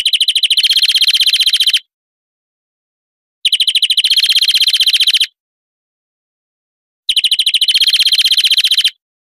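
European greenfinch song: a fast, high trill that shifts partway through to a buzzier, lower trill, each phrase lasting under two seconds, repeated three times with sudden silent gaps between.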